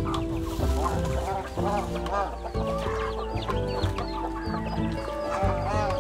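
Chickens clucking in a foraging flock, many short calls over one another, over background music with long held notes.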